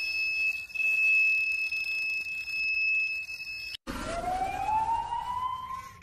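Carp bite alarm sounding one continuous high tone, the sign of a fish taking line, cutting off about four seconds in. A smooth rising whine follows.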